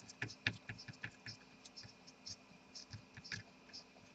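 Faint scratching and small irregular clicks of flux residue being scrubbed off a laptop motherboard around the graphics chip with isopropyl alcohol.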